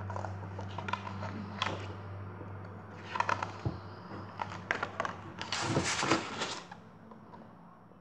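Picture-book page being turned by hand: a few light paper rustles and taps, then a longer swish of the page flipping over about two-thirds of the way through.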